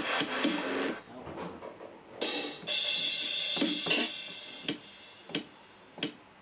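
Drum beat from a music production session: drum and hi-hat hits, a ringing cymbal crash about two seconds in, then single sharp hits spaced well apart as it thins out near the end.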